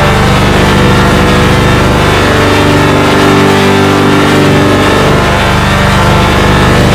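Loud, digitally processed sound-effect drone: many layered steady tones over a buzzing, engine-like rumble. The lowest part drops away and the tones shift for a couple of seconds in the middle, then the drone returns to its earlier pattern.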